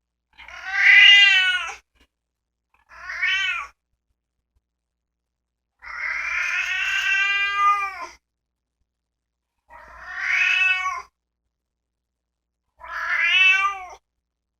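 A 13-year-old house cat meowing: five drawn-out calls with short silences between, each rising and then falling in pitch. The longest, about two seconds, comes in the middle.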